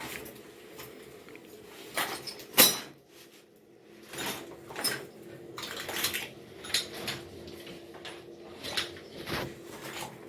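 Metal clinks, clicks and knocks of tools and parts being handled while a washing machine is taken apart, with one loud clank about two and a half seconds in.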